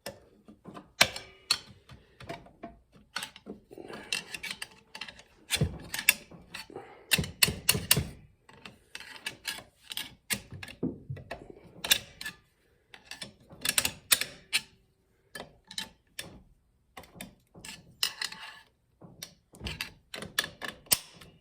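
Irregular metallic clicking and clattering of transmission parts being handled: the 700R4's forward clutch assembly being jiggled and turned to seat its splines into the clutch plates in the case.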